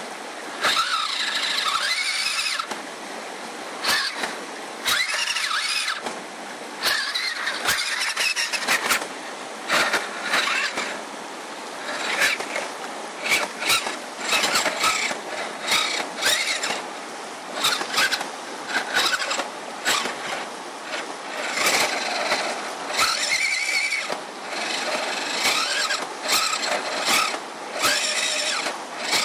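Converted Radio Shack Off Roader RC crawler's electric motor and gears whining in short bursts, rising and falling in pitch as the throttle is worked. Sharp clicks and knocks come from the tyres and plastic body against rocks, over a steady rush of stream water.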